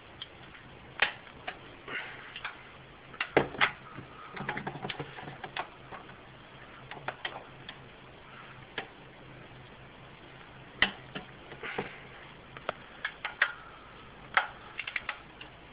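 Click-type torque wrench tightening cylinder head bolts to 50 lb-ft: irregular sharp clicks, some single and loud, others in quick runs. The wrench clicks when a bolt reaches the set torque.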